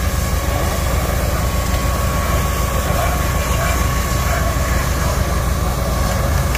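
A heavy engine running steadily, the fire tender's engine driving the pump that feeds the fire hose, with a constant hiss of water spray over it.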